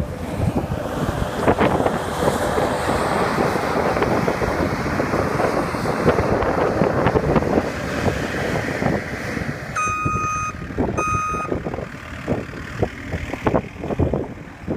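Skid steer loader running under load, and about ten seconds in its back-up alarm beeps twice.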